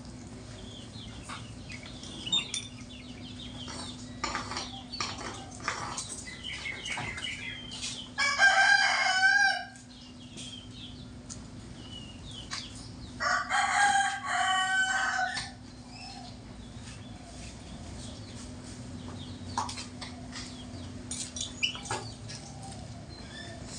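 A rooster crowing twice, each crow about two seconds long and the two about five seconds apart, over a steady low hum.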